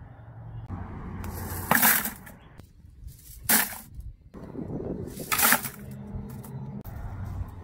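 Dry mesquite pods dropped by the handful into a plastic bucket, clattering onto the pile three times about two seconds apart.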